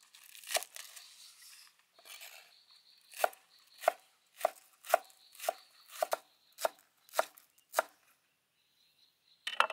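Cleaver chopping green onions on a wooden cutting board: a single chop, a brief rustle, then a steady run of about ten chops, a little under two a second, with a short clatter near the end.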